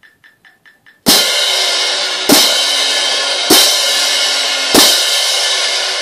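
Pair of hand-held crash cymbals clashed together four times, about a second and a quarter apart, each crash ringing on into the next.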